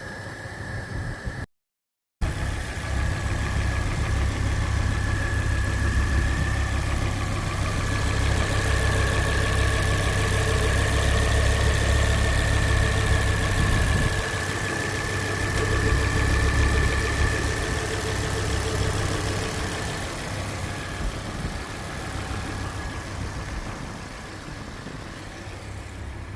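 Ford Focus ST's 2.5-litre turbocharged five-cylinder engine running at a steady speed, a deep low hum with a thin steady high whine over it. The sound cuts out completely for a moment near the start, and it eases off somewhat towards the end.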